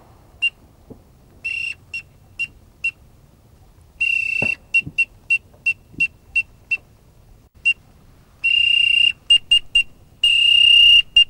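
Whistle-type duck call blown at a single high pitch, several long notes broken up by runs of short, quick peeps.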